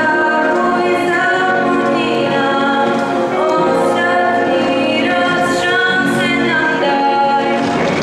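A girl singing a song solo into a microphone, amplified, with electric keyboard accompaniment and long held notes.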